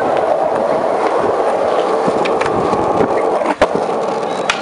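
Skateboard wheels rolling over pavement in a steady rumble. A sharp clack of the board comes about three and a half seconds in, and a smaller click near the end.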